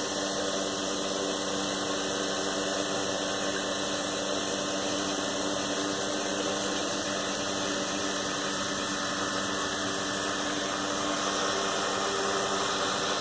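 Blade Chroma quadcopter's four brushless motors and propellers idling steadily on the ground after an automatic low-battery landing, left running to drain the battery flat.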